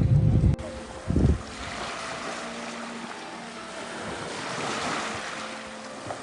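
Sea waves washing on a shore, a soft hiss that swells and eases. Wind buffets the microphone heavily for the first half second and again briefly about a second in.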